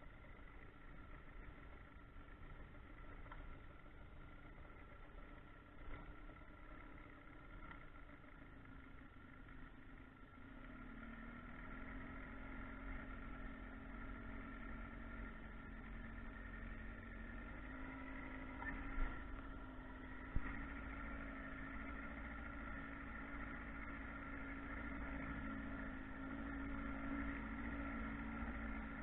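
Boat motor running steadily. It speeds up and grows louder about a third of the way in, and again a little later. Two short knocks come just past the middle.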